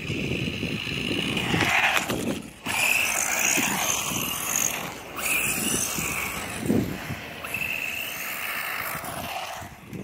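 BEZGAR HM163 1:16 electric RC truck driving on asphalt: its motor whines, rising and falling in pitch with the throttle, over the rush of its tyres.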